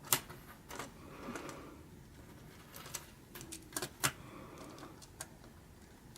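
Hard plastic LEGO Technic pieces clicking as they are handled: about seven sharp, separate clicks, the loudest right at the start and about four seconds in.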